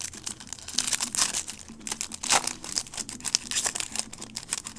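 Crinkling and crackling of trading card pack wrappers and cards being handled and torn open, in a quick irregular run of small crackles.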